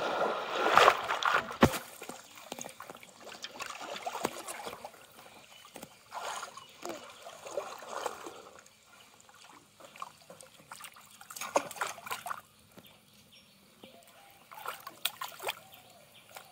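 Pond water splashing heavily as a man plunges in with a bamboo fish trap, then quieter sloshing, dribbling and small splashes as the waders move bamboo traps through the water.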